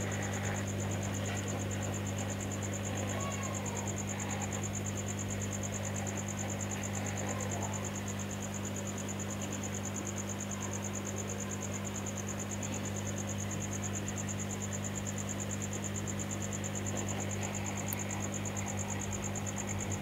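Hot-air rework station blowing, a steady low hum, with a steady high-pitched trill above it.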